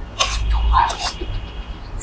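Close-miked blowing on hot soup, with a metal spoon scraping and dipping in a metal bowl of dumplings in broth; a thin steady ring runs through most of it.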